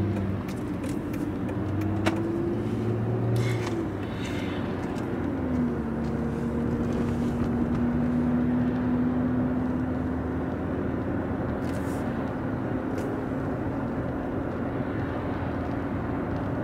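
Car driving, heard from inside the cabin: steady engine and road noise. The engine note climbs slightly, then drops about five seconds in and holds steady.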